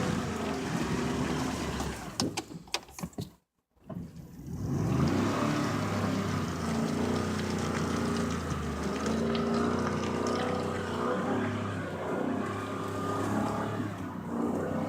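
Vehicle engine in four-wheel drive running hard under load while trying to drive out of mud. The sound turns choppy and drops out briefly about three and a half seconds in, then the engine revs up and keeps running steadily at high revs.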